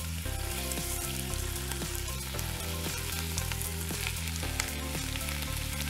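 Large chunks of beef searing in hot oil in a big pot: a steady sizzle with a few small pops, the meat left unstirred to brown.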